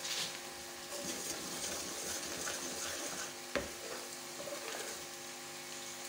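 Wooden spoon stirring simmering jaggery syrup in a karahi, with a faint steady sizzle, as the syrup cooks toward the thread stage. One sharp knock about three and a half seconds in.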